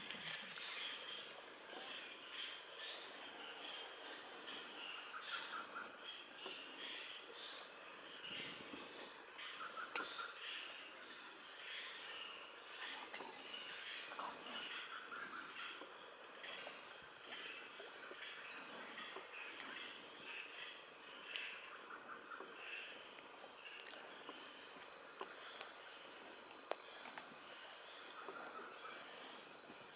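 Steady chorus of insects, a continuous shrill drone, with softer scattered chirps and calls underneath.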